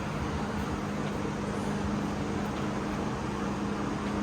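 A steady mechanical hum with a constant low tone over an even background noise, like a running fan or ventilation unit.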